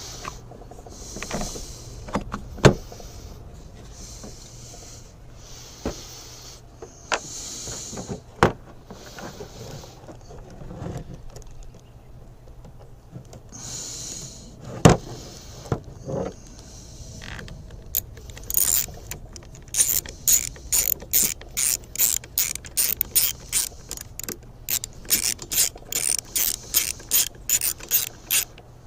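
Scattered clicks, knocks and rustles of small engine parts being handled, then a ratchet wrench clicking in a steady run of about three strokes a second as a bolt is driven in, over roughly the last ten seconds.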